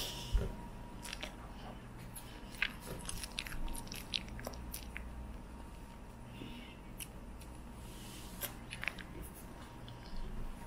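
Close-up chewing and biting of soft, sticky cloud bread, with scattered small mouth clicks. A low thump comes just after the start.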